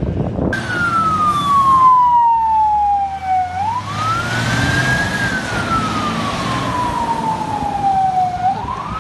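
Fire engine siren wailing: it cuts in suddenly, falls slowly in pitch, sweeps quickly back up and falls slowly again, twice over, with the truck's engine rumbling low underneath.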